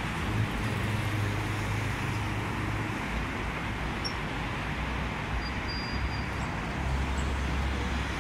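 Steady road-traffic noise with the low engine hum of vehicles passing close by, one from about half a second in for a few seconds and another near the end.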